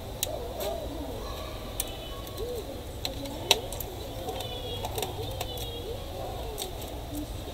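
Scattered light clicks and taps of a small screwdriver and fingers on the screws and case of a Dell Inspiron 15R-5521 laptop. The sharpest click comes about three and a half seconds in. Underneath are a steady low hum and low pitched sounds that rise and fall.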